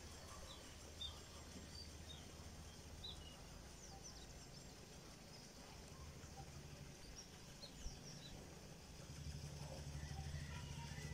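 Faint countryside ambience: small birds chirping in short, high calls over a low steady rumble, which swells near the end as a motor vehicle approaches.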